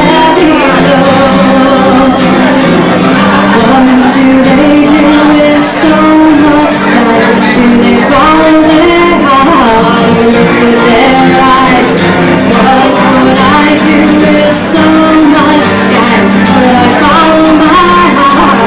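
A woman singing a slow folk song to her own acoustic guitar, heard through a microphone.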